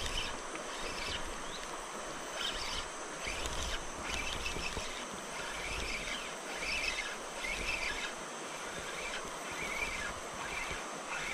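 Jungle ambience: animal calls chirping in short, irregular bursts over a steady background hiss.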